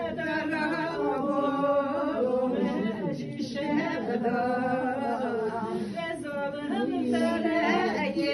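Unaccompanied voice singing a mourning lament (ağıt) in long, wavering held notes, the keening of a funeral dirge.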